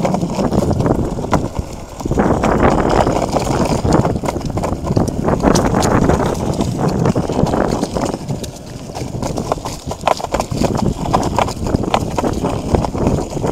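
Longboard wheels rolling over asphalt: a steady rough rumble broken by frequent small clicks and knocks, dipping briefly twice.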